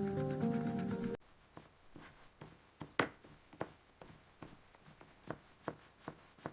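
Background music that cuts off about a second in, followed by a quiet run of irregular small clicks and taps, one sharper click about three seconds in.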